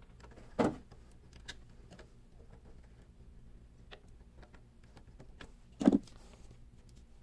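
Faint clicks and scrapes of a small screwdriver loosening terminal screws on a furnace control board and wires being worked free, with two louder short knocks, one just after the start and one near six seconds in.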